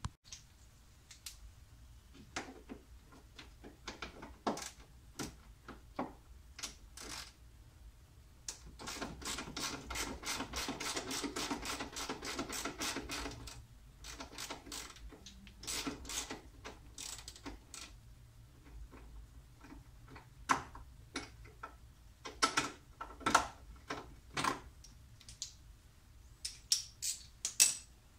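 A ratchet-type hand tool clicking as it undoes the fasteners holding a washer fluid tank. The clicks are scattered at first, then come in a dense, rapid run of ratcheting from about nine to thirteen seconds in, with louder, sharper separate clicks near the end.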